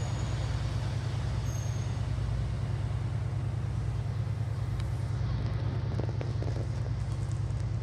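Diesel train engine idling: a steady, low, fast-pulsing rumble that does not rise or fall, over a hiss of station noise.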